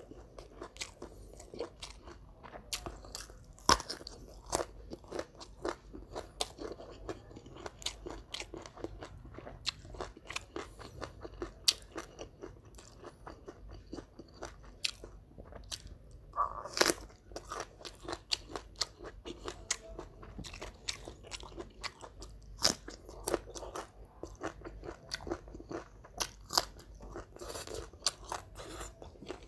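Close-miked eating sounds: repeated crunching bites and chewing of crisp deep-fried catfish, with many sharp crackles.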